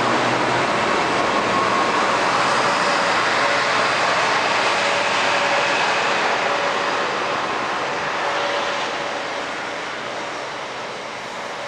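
A train passing at speed: a loud, steady rush with a faint whine in it, fading away over the last few seconds as the train moves off.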